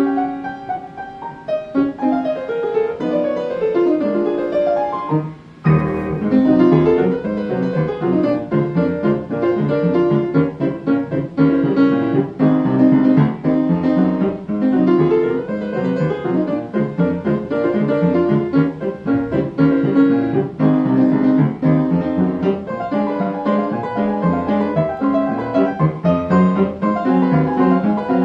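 Solo piano playing a melody over chords. It thins and dips briefly about five seconds in, then goes on with fuller chords and bass notes.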